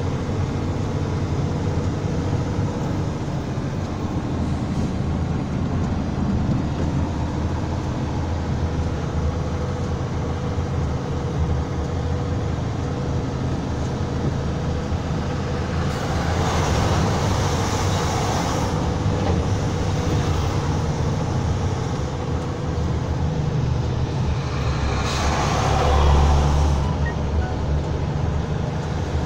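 Steady low engine drone and road noise heard from inside a vehicle's cab, with two louder rushing swells about 16 and 25 seconds in.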